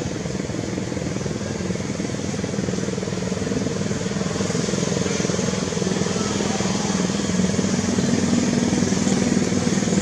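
A motor engine running steadily, a low hum that grows gradually louder toward the end.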